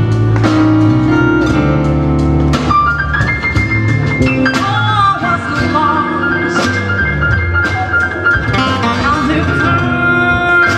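A live jazz-blues band playing: acoustic guitar, electric bass, drum kit and keyboard, with a woman singing over them.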